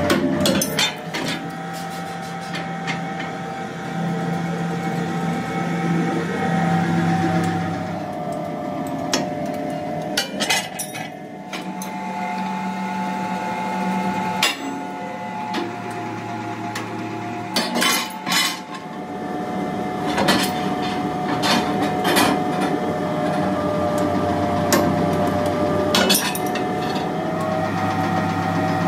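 Mechanical punch press running with a steady hum, and sharp metal clanks and knocks every few seconds as steel wheel-disc plates are punched and shifted on the die.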